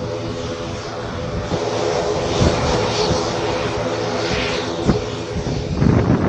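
Military aircraft flying low past, its engine noise loud and continuous, with a hiss that swells and fades over the middle seconds.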